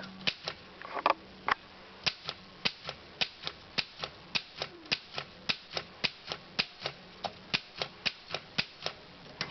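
Underwood No. 3 manual typewriter being typed on: an even run of sharp keystroke clacks, about three a second, as the typebars strike the platen for a typing sample in black ribbon.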